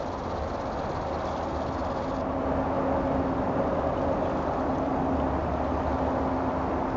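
Steady drone of a distant engine, a low hum holding one pitch over a wash of noise, growing slightly louder about two seconds in.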